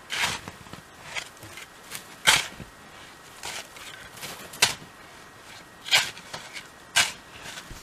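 Snow crunching in a series of sharp, irregular crunches about a second apart.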